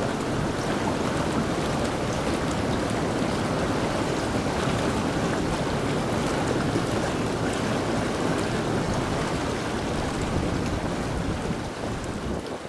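Whirlpool bath bubbling: its jets churn the water in a steady rush.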